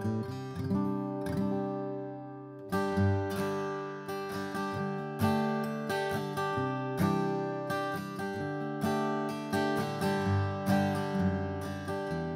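Steel-string acoustic guitar, an Atkin Essential OM, played with a Dunlop Americana Round 1.5 mm pick. A few single picked notes ring out first, then from about two and a half seconds in it strums full chords, struck about once or twice a second.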